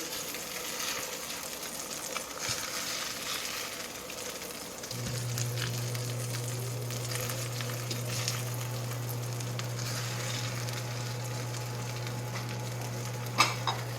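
Sizzling and crackling as a beaten duck-egg and cheese mixture cooks against a hot, freshly roasted cauliflower and its pan. A steady low hum comes in about five seconds in, and there are a couple of sharp knocks near the end.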